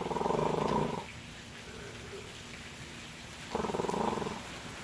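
Two short, rough growling roars, each about a second long and about three and a half seconds apart, over a low steady hiss.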